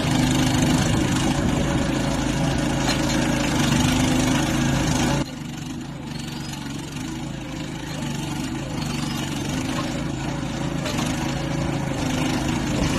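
Engine of an NM-E10 PLUS mini excavator running steadily under a working test. About five seconds in the sound drops abruptly to a quieter level, then rises slowly again as it keeps running.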